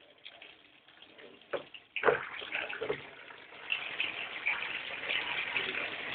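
Panasonic Aquabeat washing machine washing: water splashing and sloshing in the drum. Nearly quiet at first, then the splashing starts abruptly about two seconds in and grows steadier.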